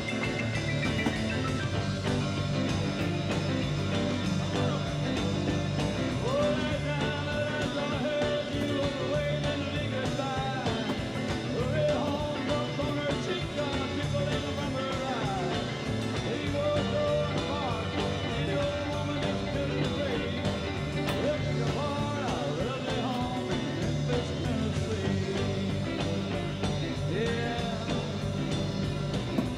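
Background music with a melodic lead line over a steady bass.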